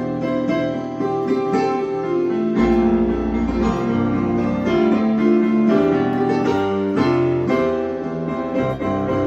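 Keyboard played with both hands: sustained major chords in the right hand over bass notes on the fifth in the left, struck anew about once a second, with a deep bass note coming in a few seconds in.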